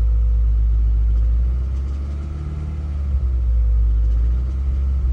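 Subaru boxer four-cylinder engine running, a steady low rumble with rapid even pulsing, which dips in level about a second and a half in and comes back. The owner hears a knock in it and fears rod knock.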